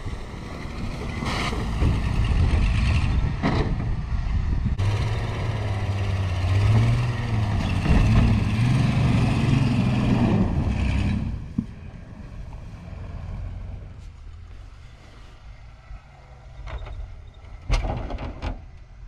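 A Ford pickup's engine revving hard while its tyres spin and throw snow, with wind rumbling on the microphone. The engine sound falls away sharply about eleven seconds in as the truck drives off, and a few sharp knocks come near the end.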